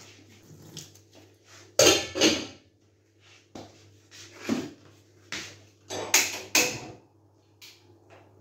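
Kitchen clatter of cookware being handled on a gas stove: a string of sharp knocks and clanks, loudest about two seconds in and again around six seconds, over a steady low hum.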